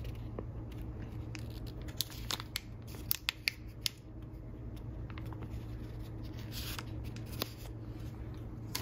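A small clear plastic candy bag crinkling and rustling as it is handled, with scattered small clicks and taps, over a steady low hum.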